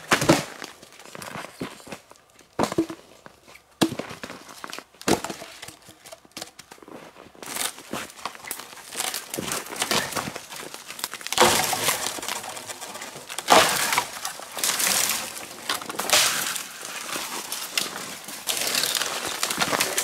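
Dry dead wood being broken by hand for firewood: sharp snaps and cracks of branches, with dense crackling and rustling of twigs and brush through the second half.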